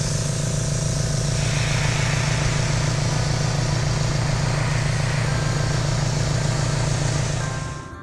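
Small airbrush compressor running with a steady low hum, under the hiss of an airbrush spraying paint. The compressor stops shortly before the end.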